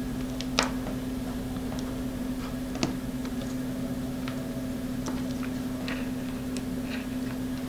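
Scattered small clicks and taps of fingers handling a plastic cinewhoop frame and fitting the video transmitter's MMCX antenna pigtail connector, over a steady low hum. The sharpest clicks come about half a second in and just before three seconds.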